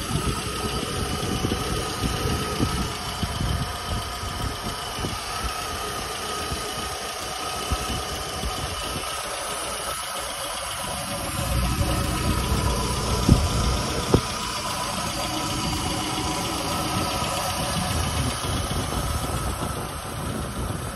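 Rover Mini MPi's 1275cc A-series engine idling steadily, heard from over the open engine bay. Two sharp knocks come a little past halfway through.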